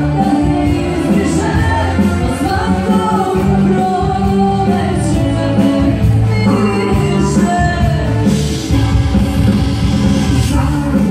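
Live Serbian folk dance music played on accordion and arranger keyboard.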